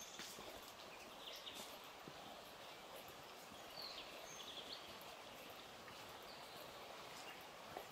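Faint, steady rush of running water from a river below the track, with a few brief high bird chirps every few seconds.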